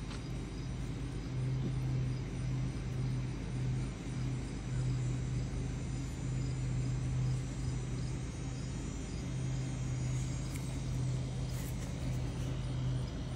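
A steady low mechanical hum, like a motor or engine running nearby, swelling and fading a little and stopping near the end, with a faint high steady trill above it.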